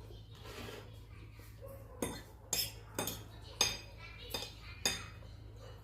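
Cutlery clinking against a plate six times in quick succession, sharp with a short ring, over a low steady hum.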